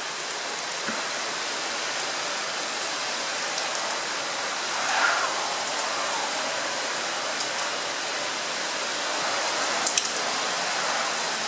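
Storm rain falling steadily, an even hiss, with a few sharp taps about ten seconds in.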